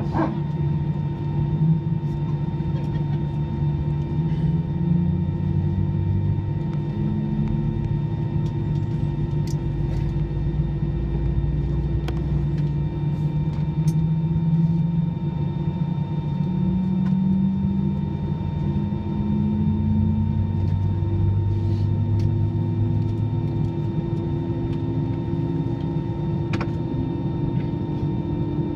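Steady drone inside the cabin of an Airbus A319 on the ground, with several constant hums and a low tone that slowly wavers up and down in pitch. A few faint clicks are heard.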